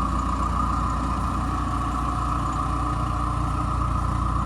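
John Deere 410E backhoe loader's 4.5-litre four-cylinder diesel engine idling steadily and evenly, in good running order.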